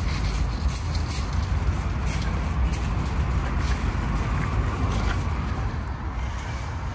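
Steady low outdoor rumble, with scattered light clicks and rustles during the first few seconds.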